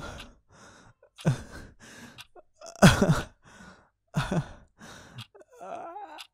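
A man sighing and groaning wearily, about four breathy sighs more than a second apart, some ending in a falling voiced groan.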